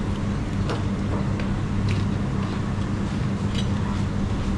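A steady low hum from a motor or engine, with a few faint light clicks.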